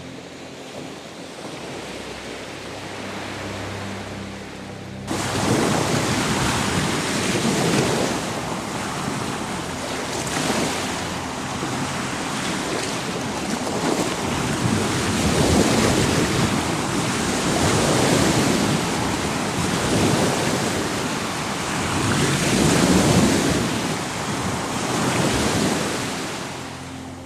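Baltic Sea waves breaking on the shore, surging and washing back about every two and a half seconds, in a loud stretch that starts abruptly about five seconds in and fades near the end. Before that comes a softer, steadier wash of water noise.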